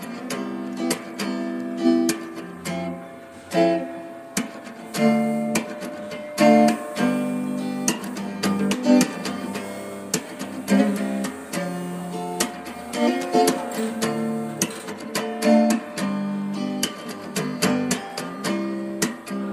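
Background music of a strummed acoustic guitar, with chords changing every second or so.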